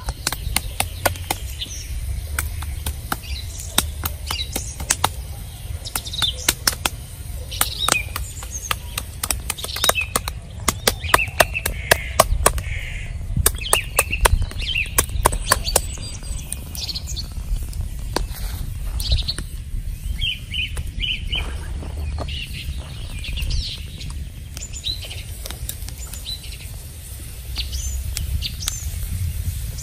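Wooden pestle pounding snake meat into a paste on a stone: rapid, repeated knocks that thin out after about halfway. Birds chirp throughout.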